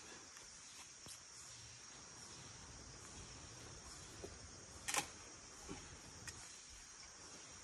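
Faint, steady, high-pitched chorus of insects in tropical forest, with a few short clicks; the sharpest comes about five seconds in.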